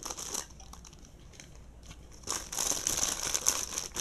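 Packaging crinkling and rustling as the contents of a lucky bag are handled and unwrapped: a short burst at the start, a quieter stretch, then steady crinkling through the last second and a half or so.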